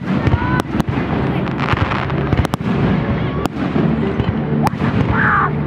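Fireworks aerial shells bursting: a series of sharp bangs at irregular intervals, about half a dozen, over a steady din of background noise.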